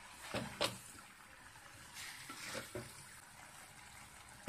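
Wooden spatula stirring a fish and grated-coconut mixture in a clay pot: a few soft scrapes and knocks against the pot over a faint, steady sizzle of the simmering mixture.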